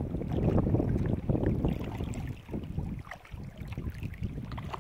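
Wind gusting over the microphone, with small waves lapping against a plastic kayak's hull; the wind eases about halfway through.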